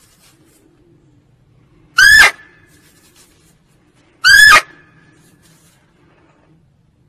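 Female red muntjac (barking deer) barking: two short, loud barks about two seconds apart, each sweeping up sharply at the start.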